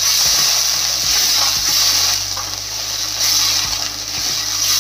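Sliced onions sizzling hard in hot oil in a steel kadhai with a little water added, a slotted spatula stirring and scraping the pan bottom to loosen stuck potato starch. A steady hiss with light scraping ticks.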